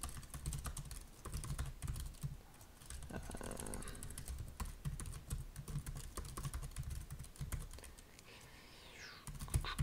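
Typing on a computer keyboard: irregular runs of key clicks with short pauses, slowing to a quieter spell near the end.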